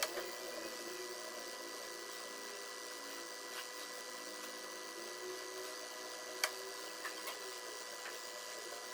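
Twin-tub washing machine's motor running with a steady, quiet hum, with a few light clicks.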